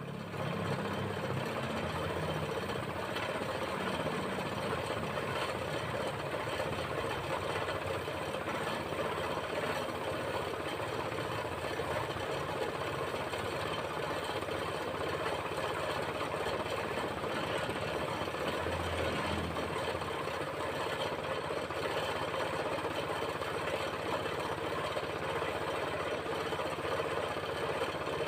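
Compressed-air spray-painting equipment running steadily: a motor-like drone with air hiss that holds an even level and does not break off.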